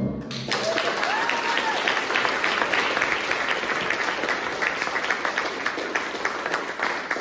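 Audience applause, a dense patter of many people clapping, that starts right after the music cuts off and begins to die down near the end.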